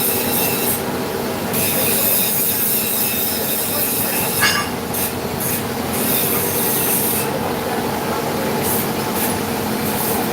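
Vertical machining centre milling metal: a steady, loud metallic screech of the cutter in the workpiece, with many ringing tones over a hiss. A brief sharper squeal comes about four and a half seconds in.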